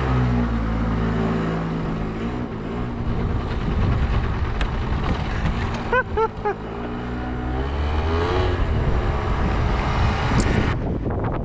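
Small 49cc two-stroke scooter engine (Yamaha Zuma YW50) running as the scooter is ridden, the pitch falling and rising again with the throttle. A short higher-pitched sound comes about six seconds in.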